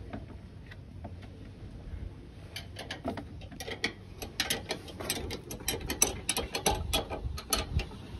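Ratchet wrench clicking rapidly in quick spurts as a bolt is worked, starting about a third of the way in and getting louder toward the end, over a low rumble.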